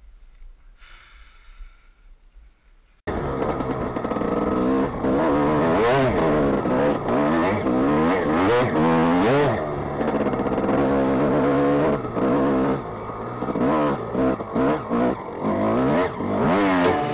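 Faint for about three seconds, then a Suzuki dirt bike's engine cuts in suddenly, revving up and down repeatedly as it is ridden off-road.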